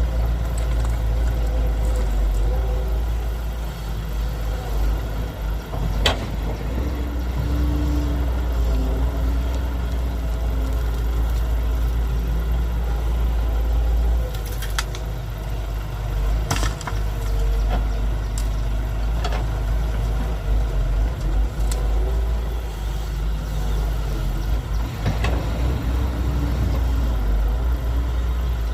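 Heavy diesel engines of an excavator and dump trucks running steadily with a low rumble, with a few sharp knocks spread through it.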